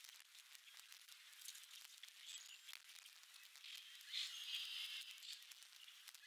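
Faint outdoor ambience, near silence, with a few faint high bird chirps, tiny crackles and a soft noisy swell about four seconds in.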